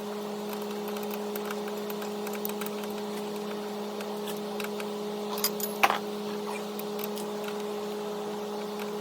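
John Deere 332 garden tractor running steadily with an even, pitched hum. A few sharp metallic clicks come through, the loudest about six seconds in.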